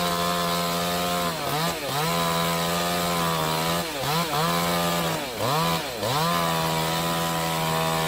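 Two-stroke chainsaw running at high revs. Its pitch dips briefly and recovers about six times as the chain bogs and picks up again in the cut.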